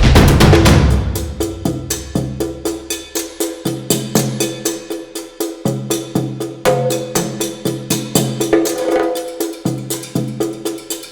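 Background music: a percussive track with a steady beat and a bass line. It is loud and dense for about the first second, then thins out.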